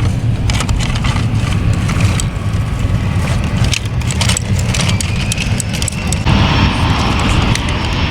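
Plastic toy construction trucks clicking and scraping in gravel over a steady low rumble. About six seconds in, a louder, even rushing noise sets in: an airplane passing.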